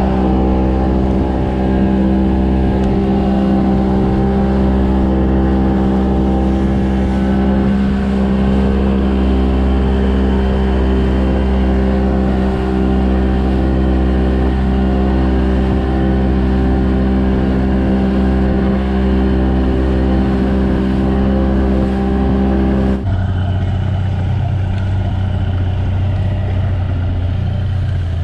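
Outboard motor running steadily at cruising speed on a small boat, with wind and water noise. About 23 seconds in, the engine note changes abruptly to a lower, steadier hum.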